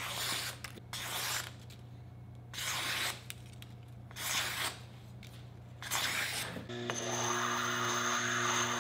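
Freshly honed chef knife slicing through a sheet of paper in five short swishing cuts, testing the edge. From about seven seconds in, the Tormek T8 wet grinder runs with a steady hum while its stone grader rasps against the spinning grindstone to change its grit.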